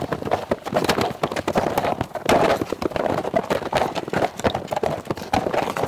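Hooves of two North Swedish draft horses stepping in snow as they are led round: a dense, uneven run of crunching steps.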